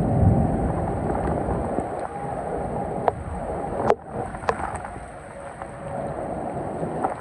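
Strong storm wind gusting over the microphone, heaviest at first and easing later, with a distant tornado siren holding a steady pitch that fades around the middle and comes back. A few sharp clicks land around the middle.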